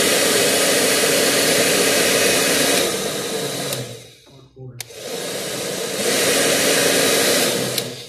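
Handheld hair dryer blowing on high speed, a steady rush of air with a hum. It dies away about three and a half seconds in; a switch clicks, and the dryer starts up again about a second later, running until it winds down near the end.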